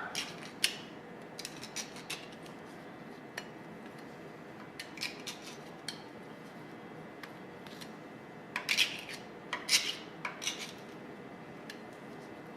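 Steel putty knife scraping old grease and gunk off the metal underside of a Bridgeport milling machine table: scattered short scrapes and metallic clicks, with a busier run of strokes about two-thirds of the way through.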